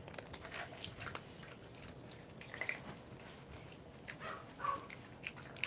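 Cats eating from their bowls: quiet chewing and crunching of dry cat food, with scattered short clicks.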